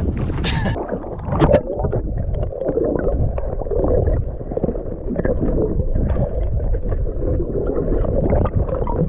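Muffled sound of sea water heard with the microphone underwater: a dense low rumble and gurgling, with the higher sounds cutting out suddenly less than a second in as it goes below the surface. One brief knock comes about a second and a half in.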